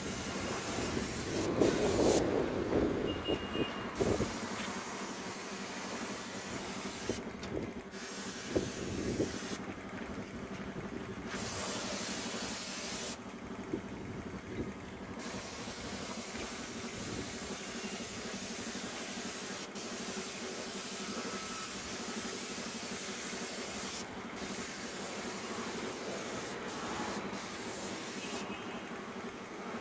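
Compressed-air spray gun hissing as paint is sprayed, in long bursts while the trigger is held, cut off briefly about half a dozen times when it is released. A low rumble is loudest over the first few seconds.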